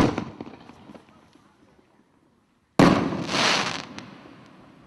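Two loud firework reports from a World Class 'Poison' consumer firework, about three seconds apart. The first trails off in small crackles; the second swells into a second of hissing crackle before fading.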